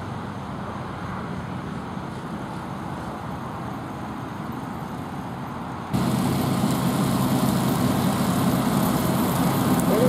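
Farm tractor pulling a rotary mower through pasture grass, its engine running steadily. It is fainter at first and much louder and closer from about six seconds in.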